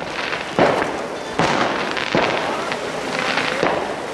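Ground fountain firework hissing as it sprays sparks, with four sharp bangs spread through it.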